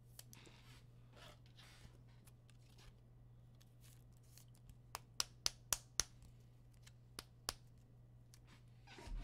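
Trading cards being handled on a table: faint sliding and rustling, then a quick run of sharp clicks and taps about five seconds in, over a low steady hum.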